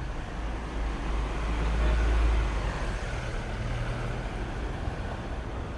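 A motor vehicle passing on the street, its engine rumble and tyre noise swelling to a peak about two seconds in and then easing back into general traffic noise.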